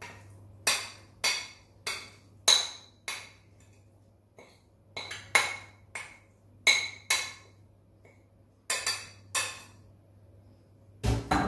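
Spoon clinking against a cut-glass bowl while filling is scooped and tapped out of it: about a dozen sharp, ringing clinks in uneven groups, with a duller knock near the end.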